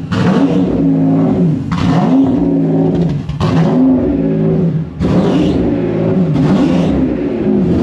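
Mercedes S600's freshly rebuilt V12 engine running just after starting, revved again and again, its pitch rising and falling about every second and a half.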